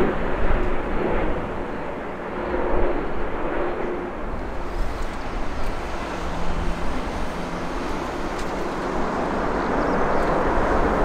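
Jet airliner engines, a steady noise that grows louder near the end as the aircraft comes closer.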